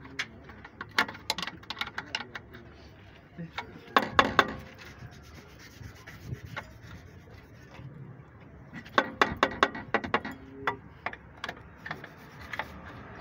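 Clusters of sharp metal clicks and taps, with some scraping, from tools and parts handled on a truck's drum brake assembly. The loudest groups come about four seconds in and again between nine and ten and a half seconds.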